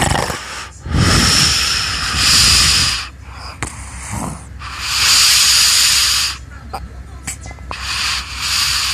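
A sleeping person's loud snoring: a low snorting rumble, then long hissing breaths, three in all, about every three seconds.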